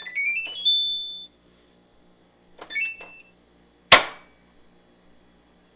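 Front-loading washing machine's control panel beeping: a rising run of electronic tones ending in a held high note, then a shorter beep tune near three seconds in, as buttons are pressed. About four seconds in, a single sharp loud click.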